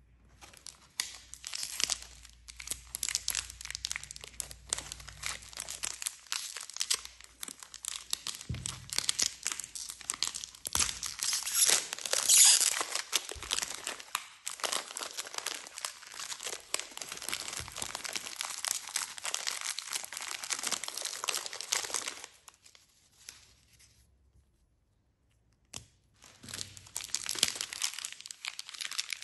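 Plastic and foil sweet wrappers crinkling and being torn open by hand: a dense crackle of many small clicks, loudest near the middle, with a pause of about two seconds late on.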